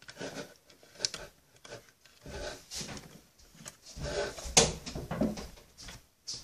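Plastic Play-Doh toy machine being handled and pressed: scattered clicks, knocks and rubbing, with one sharp click about four and a half seconds in.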